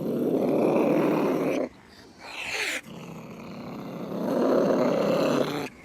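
Angry cat growling low and rough in threat, breaking into a short rising-and-falling yowl about two seconds in, then growling again until the sound cuts off near the end.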